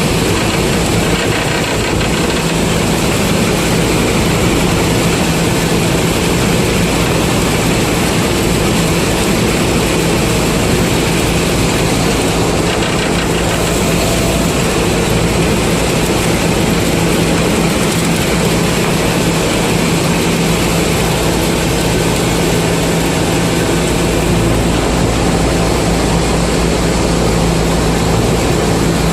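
Combine harvester engine running steadily under load, a constant low hum under a dense wash of machine noise.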